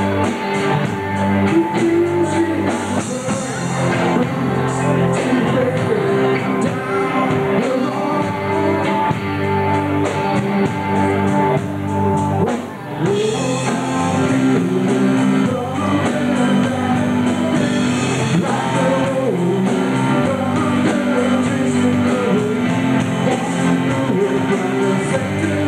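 Live amateur rock band playing: a male voice singing into a microphone over electric guitars and a drum kit, with a short dip in the music about halfway through.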